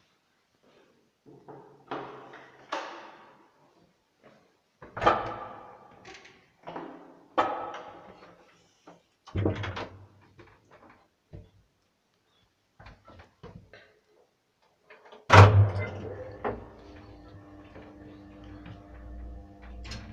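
Transporta passenger lift doors being worked: a run of clunks and rattles, then one loud bang about 15 seconds in, followed by a steady hum with a low drone.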